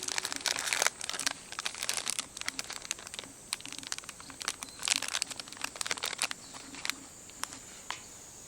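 Wood fire crackling in a small solo fire pit: irregular sharp pops and snaps over a faint steady hiss.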